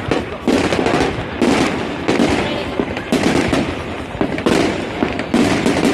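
Fireworks going off in quick succession: loud bangs about once a second over a continuous crackle and rumble.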